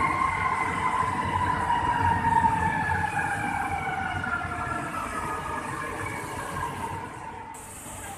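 MRT-3 CKD Tatra light rail train running on the viaduct, its motors whining in two tones that slide slowly down in pitch and fade as it goes away, over a steady rumble of road traffic. About seven and a half seconds in, the sound cuts to a different traffic background.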